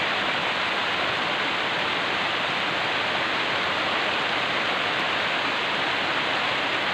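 Heavy tropical downpour: a steady hiss of rain falling on potted plants and wet paving.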